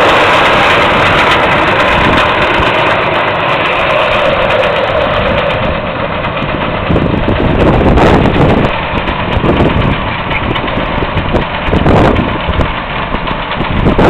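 Tractor engine and New Holland 548 Combi baler-wrapper running as the outfit works across the field, growing fainter after about six seconds as it moves away. Irregular rumbling bumps come and go in the second half.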